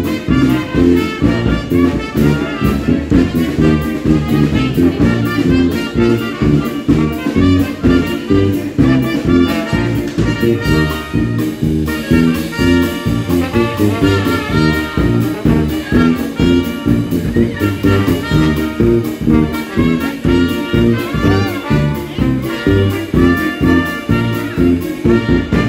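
Live Dixieland jazz band playing: trumpet, trombone and clarinet over electric bass guitar and a drum kit, with a steady swinging beat.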